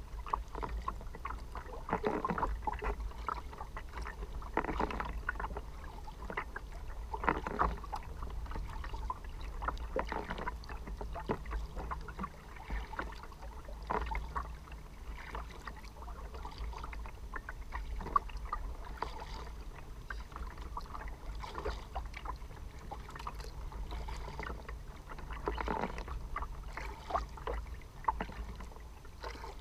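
Kayak paddle strokes dipping and splashing about every two to three seconds, with water slapping against the kayak's hull over a steady low rumble.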